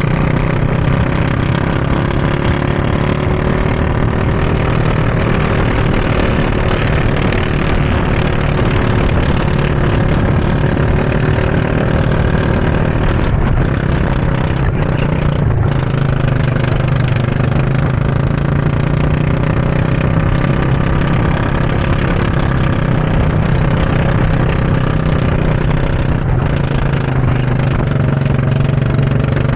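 Go-kart engine running continuously at speed through a lap, heard from onboard the kart. Its note stays steady, rising and falling gently in pitch, with a brief drop in the higher sound twice near the middle.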